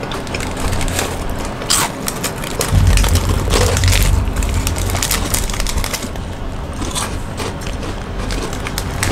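Crispy rolled wafer cookies being bitten and chewed: a run of sharp cracks and crackles, with a low rumble joining in from about three seconds in.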